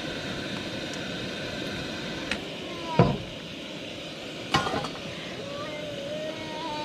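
Cookware and utensils clinking and knocking over a steady hiss, with one heavy knock about halfway through and a short clatter of clinks just after.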